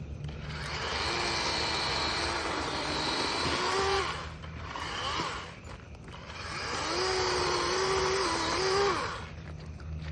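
DeWalt 20-volt XR battery chainsaw with a 12-inch bar cutting through a tree limb. It runs twice, each time for about three to four seconds, with a short drop in between; its electric motor whines under the noise of the chain in the wood.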